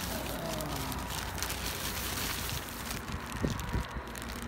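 Plastic packaging rustling and crinkling as a new crankcase heater with its wire leads is pulled from its bag, with a couple of brief handling knocks about three and a half seconds in.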